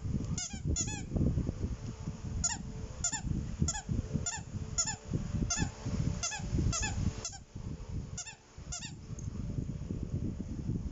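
Rubber squeaky dog toy squeaked over and over as a small dog bites and chews it: short high squeaks with a slight fall in pitch, about two a second, stopping about nine seconds in. Under them runs a steady rustle of fur, fabric and handling.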